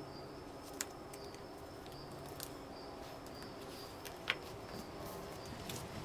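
Paper diary pages turned by hand: faint rustling with two sharper taps, about one second in and about four seconds in. A faint high chirp repeats in short dashes in the background.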